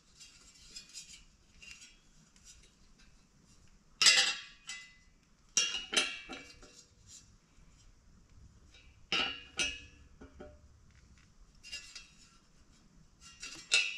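Sharp metallic clinks and taps of a wrench working at the hub of a blower fan blade on its motor shaft, a few distinct strikes with lighter ticks between.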